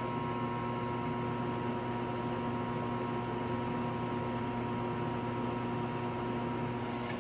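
Evcon Coleman gas furnace's draft inducer motor running with a steady hum, starting to fall off at the very end. The furnace is going into lockout after three failed ignition retries, which the owner puts down to a failed gas valve.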